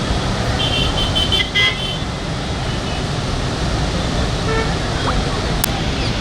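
Steady rushing noise of floodwater pouring through a barrage, with a few short high-pitched horn beeps from about half a second to two seconds in and a fainter pair of toots later.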